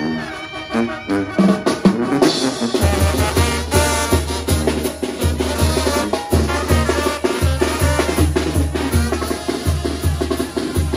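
A Mexican brass banda playing live: trumpets and trombones carry the tune. About two to three seconds in, a cymbal crash brings in the tuba and big bass drum, which beat a steady low rhythm under the brass and snare.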